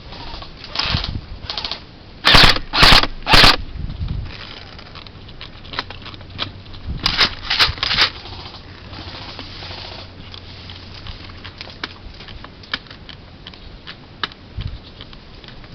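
Airsoft gun firing single shots: three sharp cracks about half a second apart a couple of seconds in, and another quick group of three or four a few seconds later, with faint clicks and rattles of the gun and gear in between.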